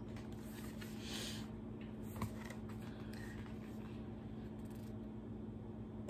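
Board book being handled and its page turned: a soft rustle about a second in and a light click about two seconds in, over a steady low hum.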